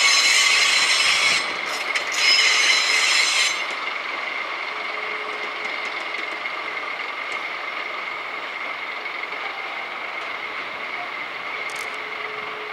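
Freight train tank wagons creeping slowly past on poor track, their wheels squealing in two loud, high-pitched shrieks over the first three and a half seconds. The shrieks give way to a steady, quieter rolling grind with a faint whine left in it.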